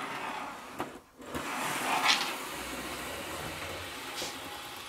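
OO gauge model railway coaches rolling along loose trial-laid track as they are pushed by hand: a light rolling hiss that swells and fades about two seconds in. It is the sign that the track runs smoothly over the joins.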